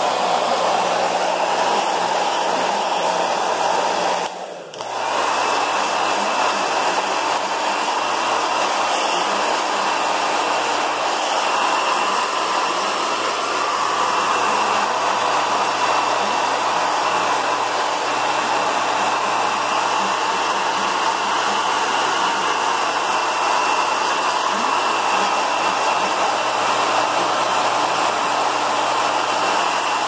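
Handheld hair dryer running steadily, a continuous rush of blowing air. It dips out briefly about four and a half seconds in, then runs on unchanged.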